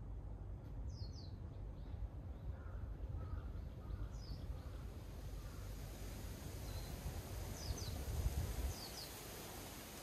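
Wind moving through forest trees with a steady low rumble, and birds calling: short high chirps now and then, and a run of about five lower calls a couple of seconds in.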